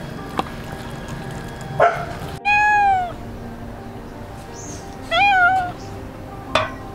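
A domestic cat meowing twice, two loud calls about half a second each; the first falls in pitch and the second wavers. Brief sharp sounds come just before the first call and just after the second.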